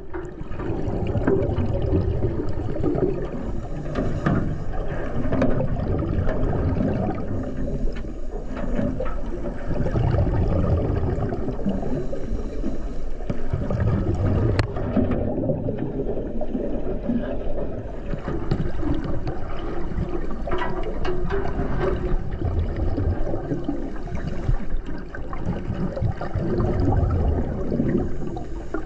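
Underwater water movement and bubbling picked up by a submerged camera: a muffled, continuous low churning rumble that swells and fades, with a few faint clicks.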